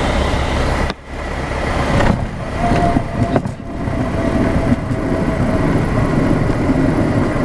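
Cockpit noise of a single-engine light aircraft on its landing roll: the propeller engine and airflow make a steady drone. The drone drops out sharply for a moment about a second in, a few short knocks follow around two to three seconds in, and a thin steady tone sounds through the middle.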